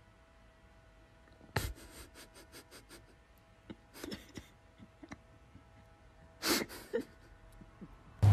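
A dog with its muzzle pushed between stair balusters makes nose and mouth sounds. About a second and a half in there is a sharp burst of breath, then a quick run of small clicks. More clicks come around four seconds, and two short, louder bursts of breath come near six and a half seconds.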